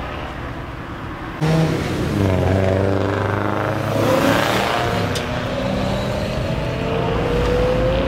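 BMW E90 M3's V8 engine accelerating away from a standstill. It gets suddenly louder about a second and a half in, the revs rise, drop back once around the middle as it shifts up, then climb steadily again.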